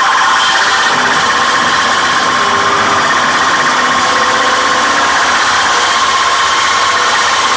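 Live harsh noise music from electronic gear: a loud, unbroken wall of hissing, grinding noise with a steady high-pitched tone held inside it and faint brief lower tones surfacing now and then.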